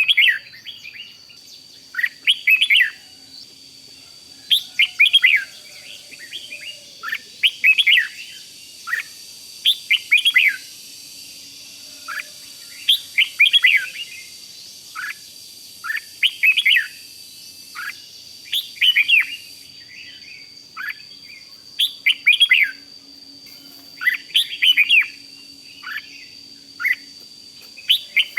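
Red-whiskered bulbul singing short, bright, warbled phrases in the 'rik' style, each lasting under a second and repeated every one to two seconds.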